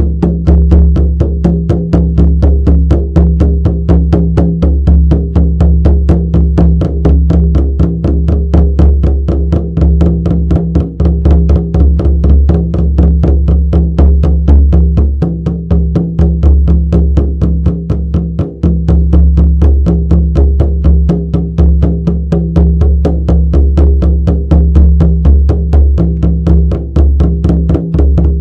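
Shamanic drum beaten in a steady, even rhythm of about four beats a second, each stroke leaving a deep, sustained boom.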